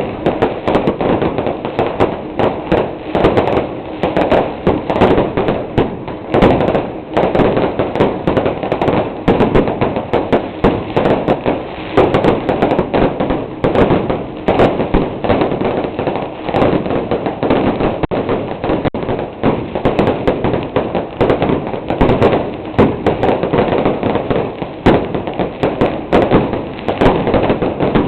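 Dense strings of firecrackers going off in a continuous rapid crackle of sharp bangs, loud and unbroken.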